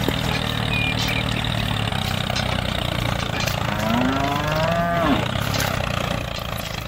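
A cow moos once, a long call that rises and then falls, about three and a half seconds in, over a steady engine hum.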